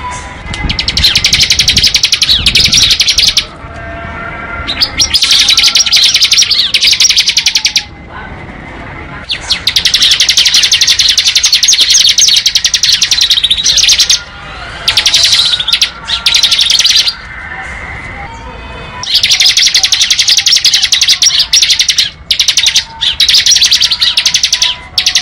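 Bar-winged prinia (ciblek) singing its 'ngebren' song: long, very rapid drilling trills of high notes, about six runs of two to five seconds each with short breaks between them. Fainter, lower chirps from other birds fill the gaps.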